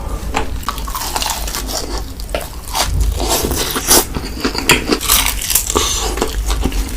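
Close-up biting and chewing of chocolate: irregular crisp crunches and crackles, busiest in the second half, over a steady low hum.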